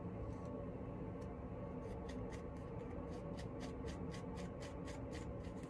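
Plastic comb scratching through hair at the scalp in quick, short strokes, about four a second from around two seconds in until near the end, with a few single strokes before that. The comb is working through dandruff caked at the braid roots.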